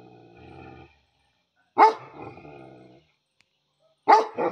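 Dog barking: one sharp bark about two seconds in, then two quick barks near the end, each trailing off into a quieter, drawn-out low sound.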